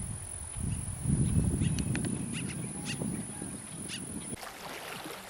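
Outdoor lakeshore sound: a low, gusty rumble on the microphone, with a string of short bird calls between about one and a half and four seconds in. A thin, steady high whine stops about four seconds in.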